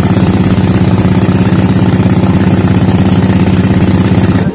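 Pump boat's engine running steadily close by, a rapid even knocking beat.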